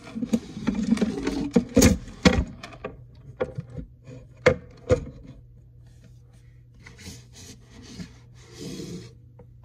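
Handling noise on a phone: fingers rubbing and knocking against the phone close to its microphone as it is held and moved. There is a cluster of rubbing and clicks in the first few seconds, two sharper knocks about four and a half seconds in, then it goes quieter, with another patch of rubbing near the end.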